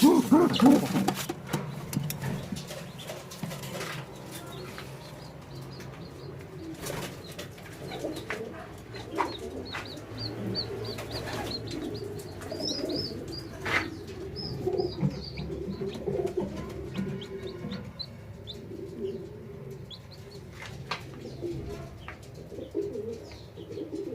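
A pigeon cooing in low, repeated pulses, with chicken chicks peeping in quick, high cheeps through the middle part. A few light knocks are mixed in.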